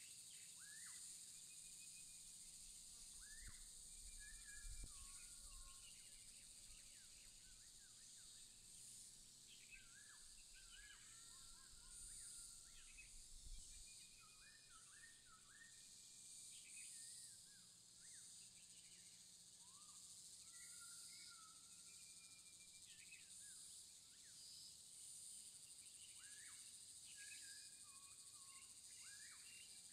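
Faint outdoor ambience of many small birds chirping and calling in short, scattered notes over a steady high-pitched insect drone. A faint low rumble underneath fades out about halfway through.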